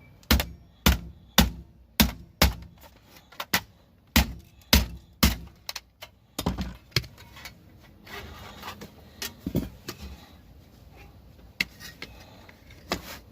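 Hammer blows striking a scrap item to break it apart. About ten hard strikes come roughly every half second for the first seven seconds, then give way to lighter knocks and rattling.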